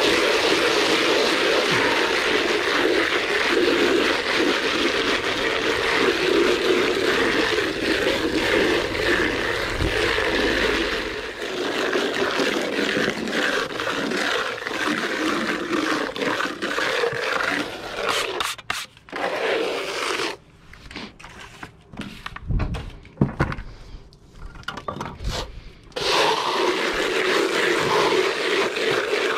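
Steel plastering trowel scraping across render on a wall in long continuous strokes. Near the end it breaks into short separate scrapes with pauses between, then runs on steadily again.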